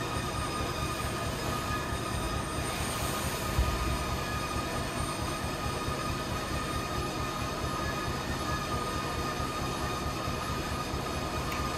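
A railside railcar shaker clamped to a hopper railcar runs steadily, vibrating the car so its load of sand flows out through the bottom gate. It makes a steady mechanical hum with several high tones held over it, and there is one brief thump about three and a half seconds in.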